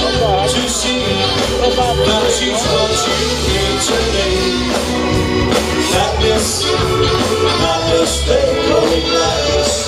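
Live ska band playing through an outdoor PA: saxophone, drums and keyboards with a singer's voice over a steady beat.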